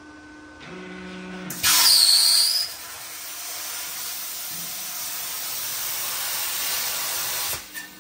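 Homemade CNC plasma cutter firing and cutting sheet metal. A low hum comes on under a second in, then the arc starts with a loud hiss and a brief whistle, settling into a steady hissing rush of air and arc that cuts off shortly before the end.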